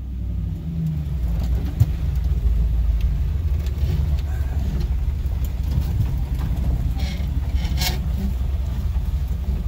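Swapped-in GM LS V8 of a 1969 Nissan Patrol G60 running at low speed, a steady deep rumble heard from inside the cab. Two brief hissy noises come about seven and eight seconds in.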